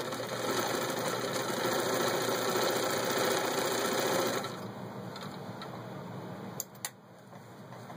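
Bernina Record 830 sewing machine running steadily, stitching a zigzag through six layers of denim, then stopping about four and a half seconds in. Two sharp clicks follow near the end.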